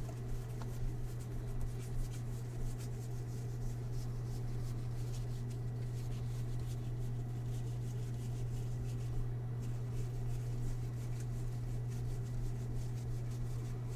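Baseball trading cards being handled and slid through the hands one by one, soft rubbing and light ticks, over a steady low hum.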